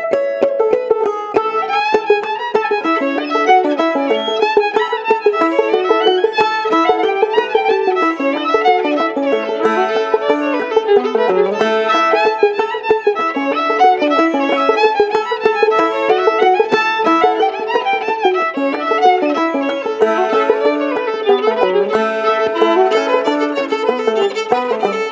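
Fiddle and clawhammer banjo playing a lively old-time tune together, the fiddle carrying the melody in a continuous run of notes.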